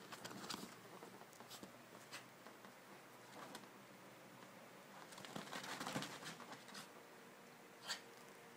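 Faint scratching and rustling of small dogs' paws and claws moving on chair upholstery, thickest a little past the middle, with a single sharp click near the end.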